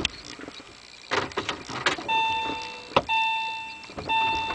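Clicks and key handling inside a Porsche 996's cabin, then the dashboard warning chime as the ignition is switched on: a steady tone repeating about once a second.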